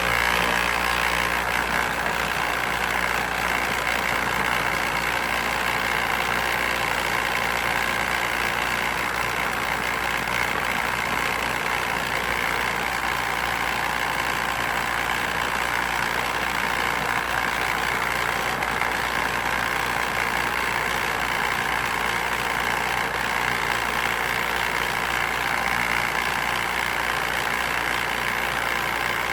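Motorized compost sifter running steadily as compost is fed through it.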